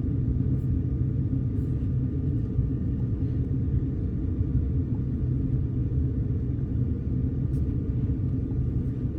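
Ford 6.0L Power Stroke V8 turbodiesel idling steadily at full operating temperature, an even low rumble.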